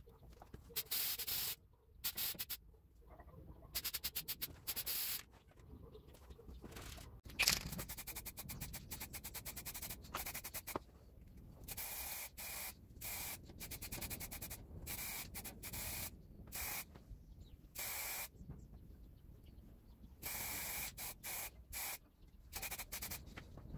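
Spray paint hissing out of the nozzle in many short on-off bursts, each under a second or so long, as the hanging drill parts are coated.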